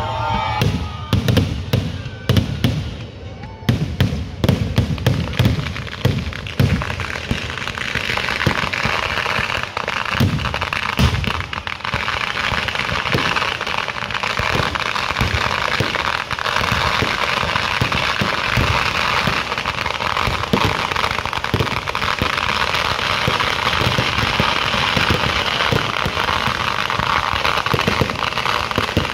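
Ground-fired festival fireworks going off: a rapid run of loud bangs for about the first ten seconds, building into a dense, continuous crackling barrage of explosions.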